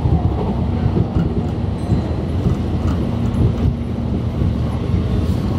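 Meitetsu Nagoya Main Line electric train running at speed, heard from inside the passenger car: a steady rumble of wheels on track with a low steady hum.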